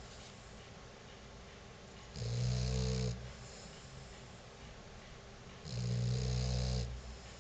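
A sleeping pet snoring: two low snores, each about a second long and some three and a half seconds apart.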